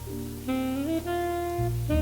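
Background music: a mellow instrumental with held melodic notes over a steady bass, with a new phrase starting about half a second in.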